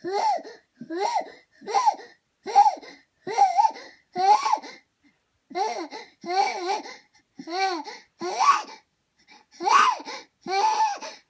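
Infant's short, rhythmic cry-like outbursts, roughly one a second, each rising and falling in pitch, with a brief pause about five seconds in. They come with repeated full-body spasms that the parent cannot tell apart as hiccups, a night terror or a seizure.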